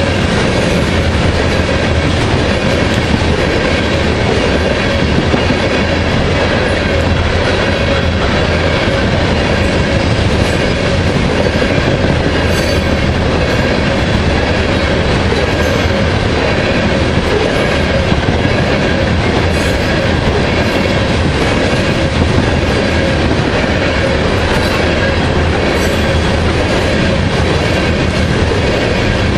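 Freight oil train of tank cars rolling past a grade crossing, a steady loud rumble and clatter of wheels on rail joints, with a few brief high squeals from the wheels.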